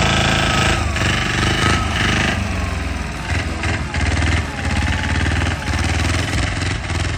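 Single-cylinder diesel engine of a patpat farm vehicle running hard off-road, with a fast chugging beat that swells and eases as the load changes. A faint whine rises and falls with it.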